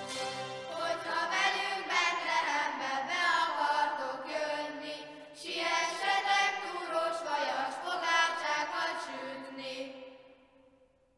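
Group of children singing a cappella, boys' and girls' voices together in a reverberant church. The last note fades out about ten seconds in.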